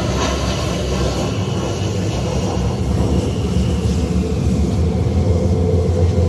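Loud, steady airplane engine noise from an aircraft flying at an airshow, a deep rumble that grows stronger in the last second or two.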